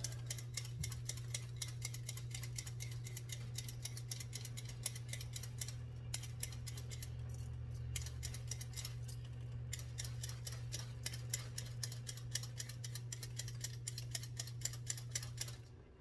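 Steady low hum of an oven preheating at 450, with rapid clicking, several a second, over it. Both cut off suddenly near the end.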